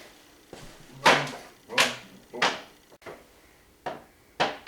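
Four sharp knocks or bangs: three about two-thirds of a second apart, then one more near the end, each ringing briefly.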